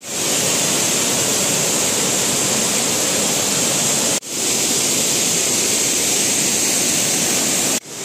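Rushing water of a tiered waterfall, a steady loud hiss. It drops out for an instant about four seconds in and again near the end, fading back in each time.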